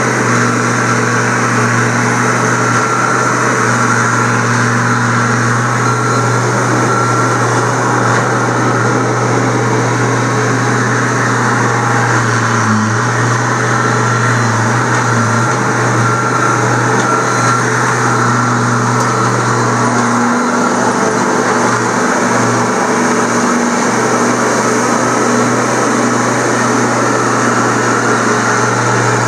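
John Deere compact track loader's diesel engine running steadily, with its pitch wavering briefly a few times around the middle and later on.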